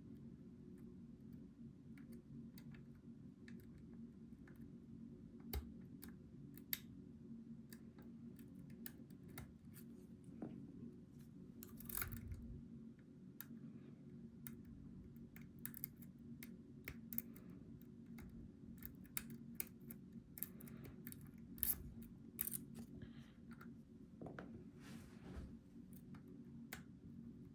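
Lock pick and tension tool working the pins of a Goal V18 pin-tumbler lock: irregular small metallic clicks and scrapes, some sharper than others, over a steady low hum.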